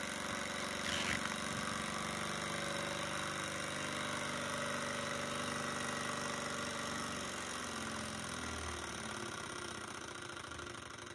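Bohm HB14 twin-cylinder Stirling model engine running with its sewing-machine-like mechanical whir. About seven seconds in it slows, falling in pitch and getting quieter.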